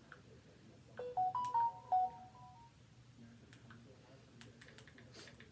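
A smartphone plays a short chime of a few quick stepped tones about a second in, followed later by a few faint clicks of fingers tapping on the phone.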